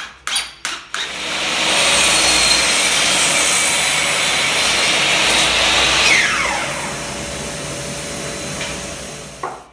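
An electric motor-driven machine running with a steady rushing noise for about eight seconds, easing to a lower level about six seconds in with a falling whine.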